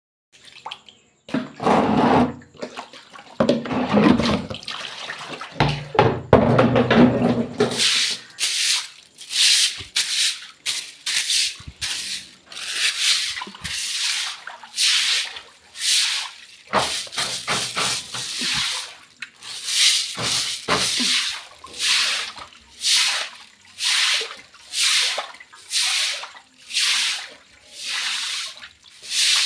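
Water splashing on a hard floor for the first several seconds, then steady swishing strokes on the wet surface, about one a second, as the floor is scrubbed.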